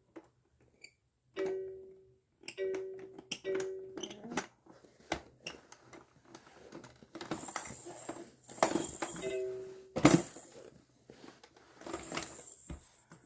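Electronic baby toy playing short musical tones, followed by rattling and clattering and a sharp knock about ten seconds in.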